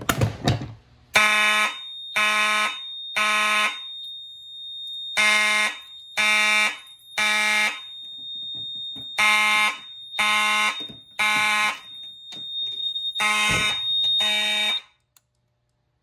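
A Notifier pull station is yanked with a short clatter. Then fire alarm horns sound in the temporal-three evacuation pattern: three short buzzy blasts, a pause, repeated four times, over a steady high-pitched tone. The alarm cuts off about a second before the end.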